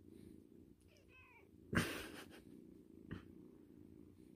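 Kitten purring steadily and faintly, with a short squeaky chirp about a second in and a brief rustle near two seconds.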